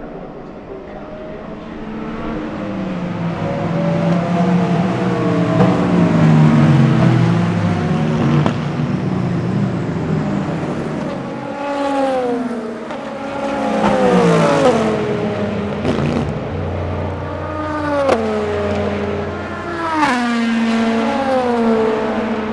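Several endurance-racing prototypes passing one after another, their engines' notes falling in pitch as each goes by and downshifts. A dense layered rush of many engines builds over the first few seconds, then separate cars pass at intervals through the rest.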